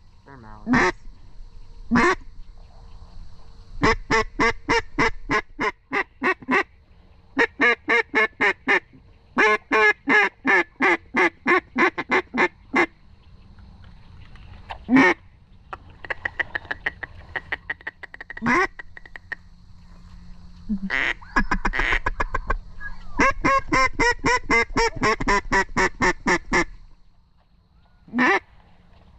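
Duck quacking in long rapid runs of evenly spaced quacks, about five a second, broken by pauses and single quacks.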